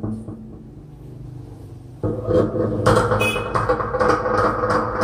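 Handling noise from a BBS U4100 wireless handheld microphone being gripped and twisted, carried through the sound system: a knock at the start, then from about two seconds in a louder rubbing and scraping with many small clicks and a brief squeak.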